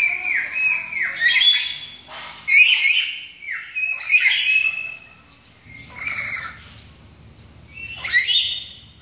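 A Papuan bird giving repeated harsh squawking calls, many of them short notes that sweep down in pitch, in quick runs through the first half, then a quieter stretch and another loud call about eight seconds in.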